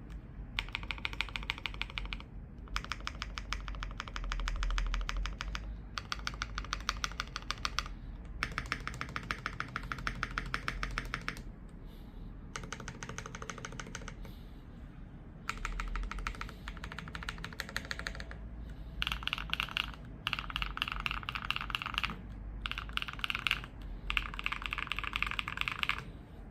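Monsgeek M5 mechanical keyboard with Feker Holy Panda tactile switches being typed on: fast runs of keystroke clacks lasting a few seconds each, broken by short pauses.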